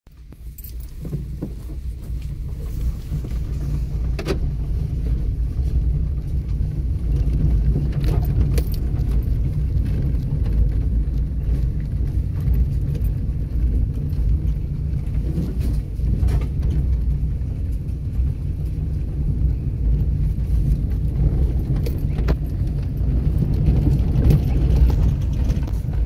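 Car driving down a bumpy dirt road, heard from inside the cabin: a steady low rumble of engine and tyres, with occasional short rattles and clicks as the car jolts. The sound fades in over the first couple of seconds.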